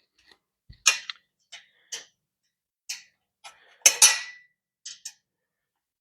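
Irregular sharp metallic clicks and clinks of an Allen key working the bolts of a steel bed frame, about nine in all, with a louder double clink about four seconds in.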